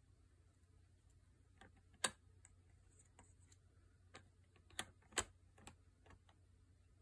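Plastic pieces of a treat puzzle board clicking and knocking as an animal noses and paws at its sliders and lids: irregular sharp clicks, the loudest about two seconds in and again just past five seconds.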